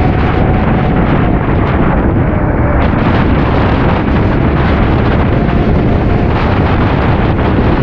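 Loud, steady wind rumble on the microphone of a camera on a moving motorcycle, with road and engine noise buried underneath.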